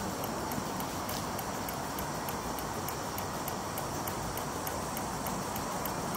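Stuart 10H single-cylinder horizontal model steam engine running steadily under steam: a continuous hiss with a rapid, even ticking from the engine's beats.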